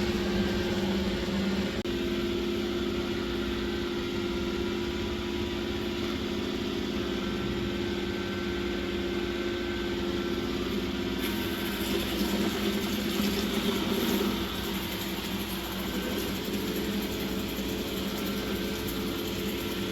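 Dreame D10S Plus robot vacuum running, a steady motor and brush hum as it vacuums up dried leaves. About eleven seconds in, the sound turns brighter and hissier.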